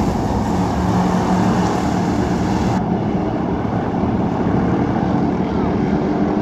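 Engines of a pack of hobby stock race cars running at racing speed, a steady loud mix of engine noise.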